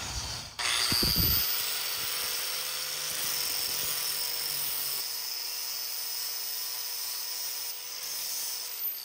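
Bauer angle grinder with a flap disc spinning up about half a second in, then running with a steady high whine while it sands rust off a steel bar. It is switched off at the very end and starts to wind down.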